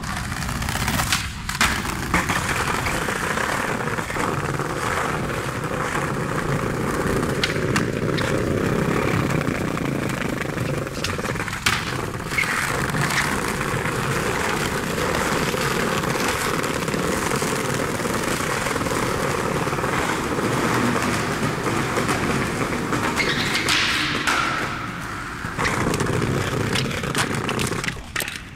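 Skateboard wheels rolling over brick pavers, a continuous rumble, broken by a few sharp knocks of the board.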